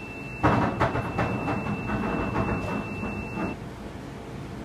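Driving-range automatic ball tee-up machine rattling as it feeds and raises the next ball onto the tee, a clatter of about three strokes a second lasting some three seconds. A faint steady high whine stops about three and a half seconds in.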